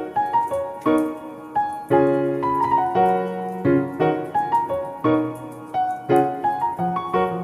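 Background music: a piano playing a melody over chords, its notes struck and left to fade.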